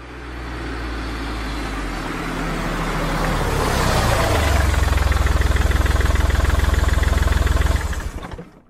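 A low rumble builds up over about four seconds into a loud, fast-pulsing low drone, then cuts off near the end.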